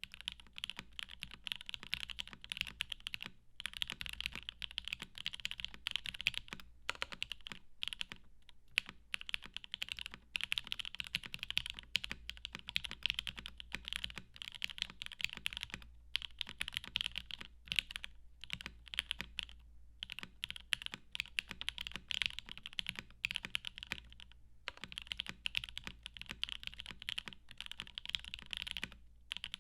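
Steady, fast typing on a custom mechanical keyboard fitted with lubed and filmed Alpaca v2 linear switches on a polycarbonate plate, with Cherry-profile PBT keycaps: a dense run of keystroke clicks broken by a few brief pauses.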